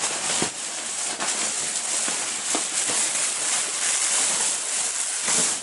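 Gift-wrapping paper rustling and crinkling as it is torn open and handled, with a few sharp crackles.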